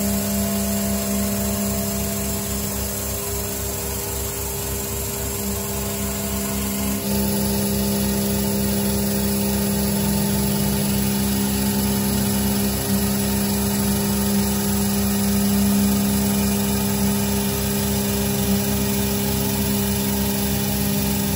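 Emco F1 CNC milling machine with an end mill cutting an aluminium plate: steady spindle hum and machining noise as the cutter runs along the profile. The tone shifts a little about seven seconds in.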